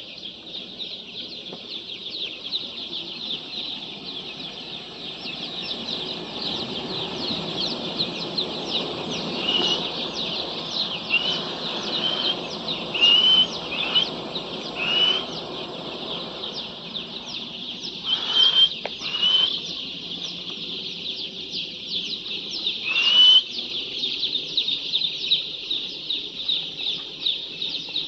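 Many chickens calling together: a dense, continuous chorus of high peeps, with a handful of louder calls standing out about ten seconds in and again near eighteen and twenty-three seconds.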